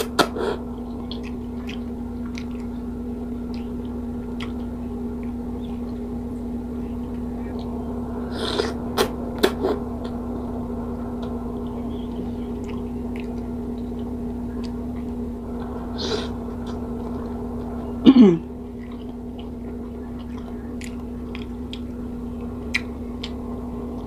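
Eating sounds close to the microphone: odong noodles in sardine soup being slurped and chewed, with small scattered clicks, over a steady low hum. A few louder slurps come around 9 and 16 seconds in, and the loudest short sound about 18 seconds in.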